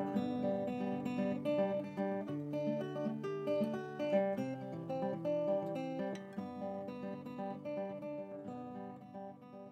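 Acoustic guitar music of picked notes, fading out near the end.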